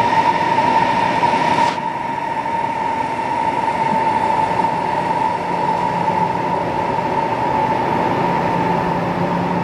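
CRH3 (Siemens Velaro) high-speed electric trains moving through a station. The rush of a passing train cuts off suddenly under two seconds in, leaving the quieter running of another train. A steady high whine runs throughout, and a lower hum joins about halfway.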